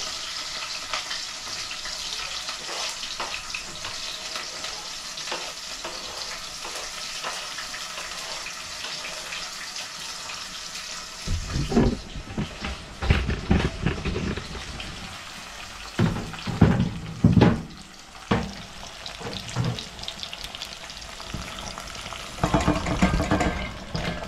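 Chopped onion and sweet pepper sizzling in a frying pan, a steady hiss. About halfway through, irregular knocks and bumps start over the sizzle.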